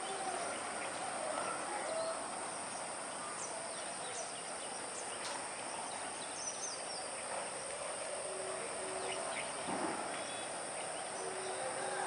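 Steady outdoor background noise with scattered faint, brief bird chirps.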